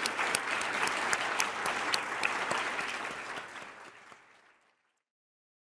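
Audience applauding, with many hands clapping at once; the applause fades out about four seconds in.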